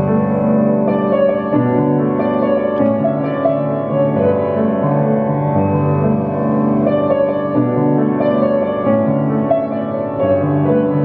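Piano being played: a melody over held chords, with notes changing about every second.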